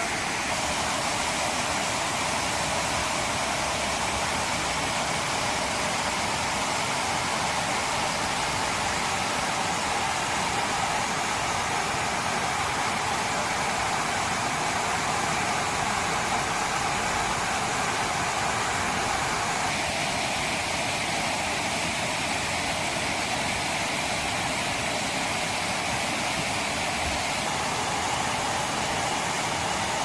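Waterfall spilling over rocks into a stream bed: a steady, even rush of water.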